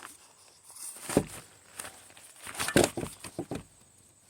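Footsteps: a single step about a second in, then a run of several quicker steps and scuffs.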